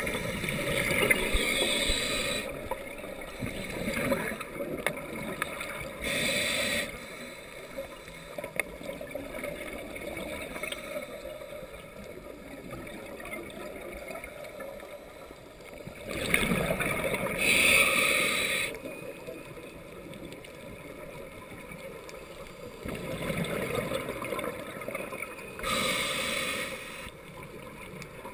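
Underwater scuba breathing through a regulator: a few slow breaths, each a bubbling, gurgling exhale and a short hiss of air on the inhale, spaced several seconds apart over a steady low underwater rumble.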